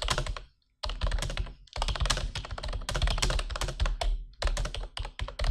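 Fast typing on a Redragon Yaksa membrane gaming keyboard: a dense run of key presses, with a brief pause about half a second in.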